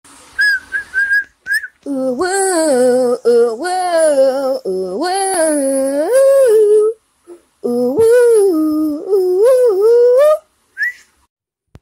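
A few short, high whistled notes, then a voice singing a wordless tune that glides up and down in two long phrases, with a brief gap between them.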